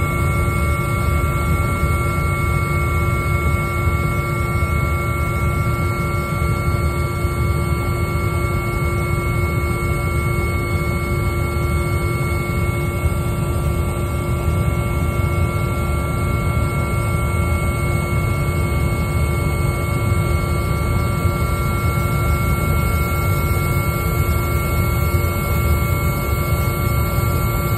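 Cabin noise of an AgustaWestland AW139 twin-turbine helicopter in cruise flight. It is a loud, steady low rumble with several constant high whining tones over it, unchanging throughout.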